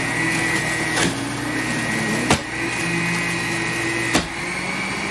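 Hamilton Beach centrifugal juicer running with a steady motor whine as carrot pieces are pressed down its feed chute. Three sharp knocks come about a second, two seconds and four seconds in.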